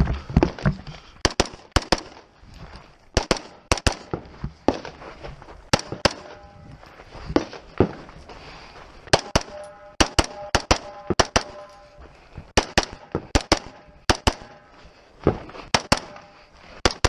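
Rifle shots fired at an irregular, measured pace, often in quick pairs, with pauses of a second or more between strings. A few shots are followed by a brief ringing tone.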